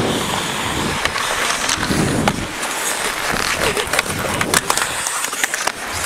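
Ice hockey skate blades scraping and carving on the ice close to a player-worn camera, with a low rumble of movement and wind on the microphone in the first half. Several sharp clacks come in the second half.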